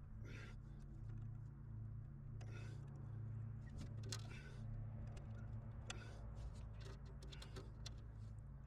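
Faint scattered clicks and light taps of hardware being handled, a bolt, nut and bracket worked into place by hand, over a steady low hum.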